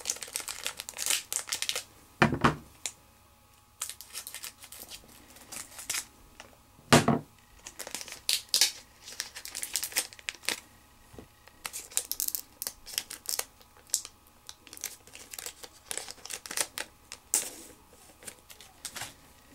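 A Pokémon card booster pack's wrapper being torn open and crinkled by hand, with irregular crackling and rustling. Two louder rustles come about two and seven seconds in.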